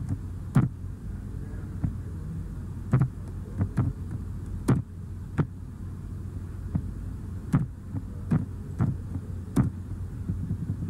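Scattered computer keystrokes and mouse clicks, a dozen or so at irregular intervals, over a steady low hum.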